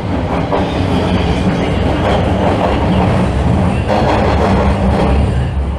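TTC subway train running past along the station platform: a loud, steady rumble of steel wheels on rail.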